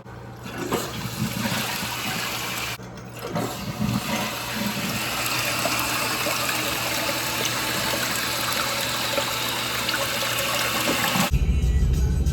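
Toilet flushing: water rushing steadily for about ten seconds, with a short break near three seconds in, then cut off suddenly near the end.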